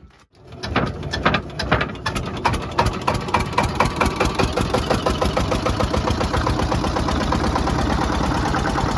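Boat engine coming in just after a brief quiet moment and running with a rapid, even chugging that settles to a steady beat.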